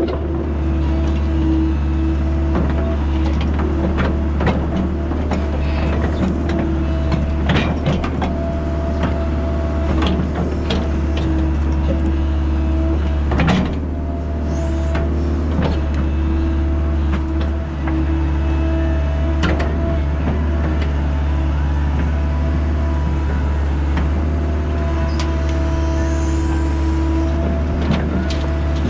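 Excavator's diesel engine running steadily under work, with scattered knocks and clanks of the bucket and frozen chunks of soil being dug and dropped.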